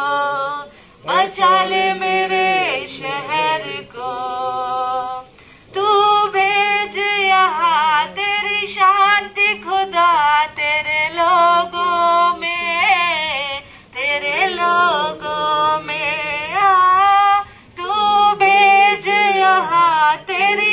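A woman singing a devotional prayer song unaccompanied, in long, wavering held phrases with short pauses between them.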